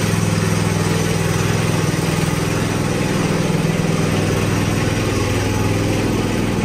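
Ride-on lawn mower engine running steadily at full throttle as the mower drives across the lawn.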